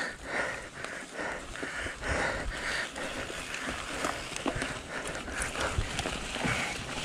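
Full-suspension enduro mountain bike riding down a rough forest trail: tyres crunching over dirt, leaves and rocks, with frequent irregular knocks and rattles as the bike hits roots and stones.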